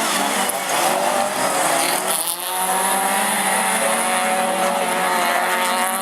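Several autograss race cars' engines revving hard, their pitch rising and falling through the first couple of seconds, then running at steadier high revs.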